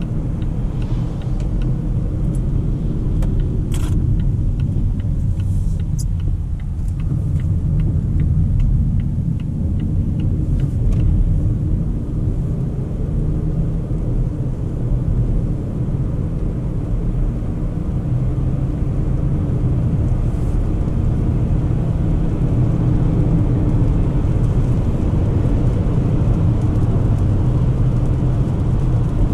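Volvo XC40 B3 driving on a wet road, with the steady rumble of its 2.0-litre four-cylinder petrol engine mixed with tyre noise as it speeds up from about 50 to over 100 km/h.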